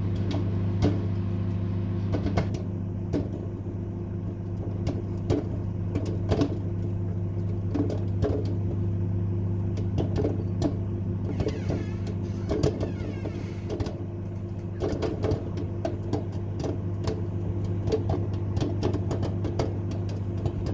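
Microwave oven running with a steady hum while popcorn kernels pop inside it in sharp, irregular pops.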